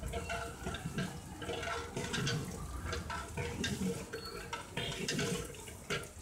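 Liquid sloshing and swishing in a large aluminium pot as a long metal ladle stirs chicken pieces through a spiced, watery marinade, in repeated strokes about every half second to second.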